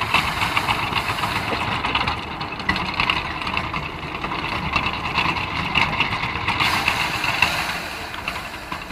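Animal-driven drum thresher running with a steady, dense rattle as bundles of grain stalks are held against the spinning drum by hand to beat the grain out.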